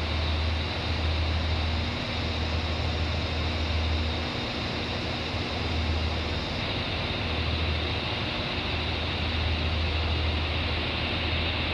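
London Northwestern Railway electric multiple unit pulling slowly out of the platform: a steady low hum and rumble with an uneven throb in the bass.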